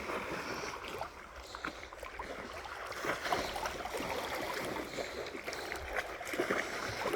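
Shallow creek water running over stones, with small irregular splashes as someone wades through it.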